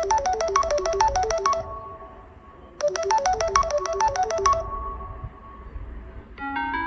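Samsung Galaxy S10e ringtone: a quick phrase of short, bright notes played twice with a pause between. A different ringtone melody starts just before the end.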